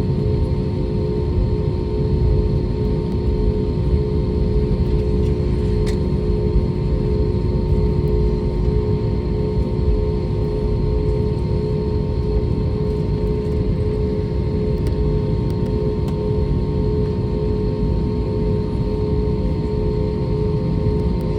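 Airbus A320neo airliner with its engines running, heard as a steady low rumble with a constant hum over it and no change in level.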